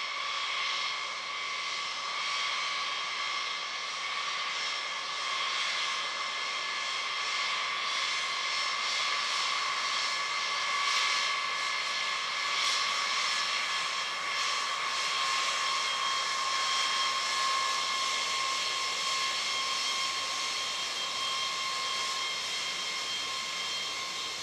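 Boeing B-52H Stratofortress's eight Pratt & Whitney TF33 turbofan engines whining steadily at low taxi power as the bomber rolls past, several high tones held over a steady hiss.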